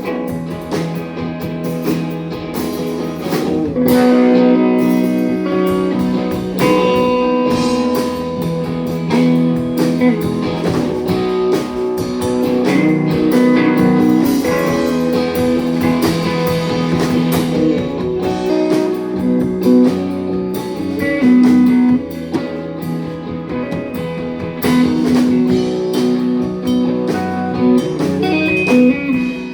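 Live band playing an instrumental break led by guitar, with no singing.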